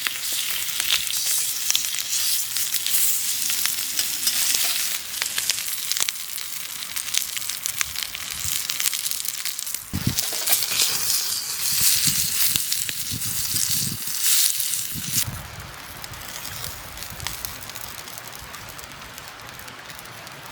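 Food sizzling and spitting in a hot frying pan, a dense hiss full of small crackles, with a few low knocks in the middle. About three quarters of the way through the sizzle drops to a quieter hiss.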